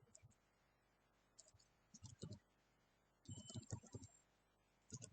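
Computer keyboard typing, faint: four short bursts of keystrokes as a terminal command is entered.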